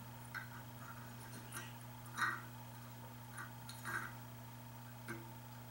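Allen wrench working screws into a metal RC work stand: a handful of light, irregular metallic clicks, the loudest a little over two seconds in, over a steady low hum.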